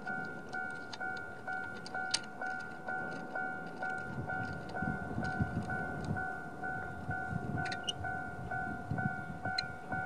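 Japanese level-crossing electronic warning bell ringing its standard two-tone ding at about two strokes a second, sounding while the crossing is closed for an approaching train. A low rumble builds underneath from about four seconds in.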